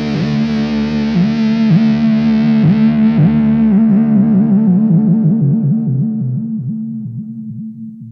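Music: a distorted electric guitar holding a long note that dips in pitch over and over, fading out toward the end.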